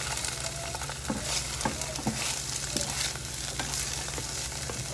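Scrambled eggs sizzling in a frying pan while a plastic spatula stirs and scrapes through them, with scattered light taps and scrapes of the spatula against the pan.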